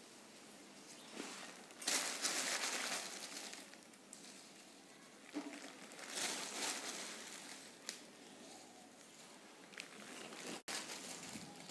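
Thin plastic bag crinkling as a hand reaches in for rose petals, in two main spells of rustling with soft handling clicks between them.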